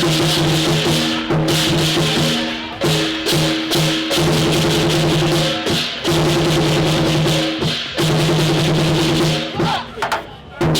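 Loud music with drums and shaker-like percussion over repeating sustained low notes, dropping away briefly near the end.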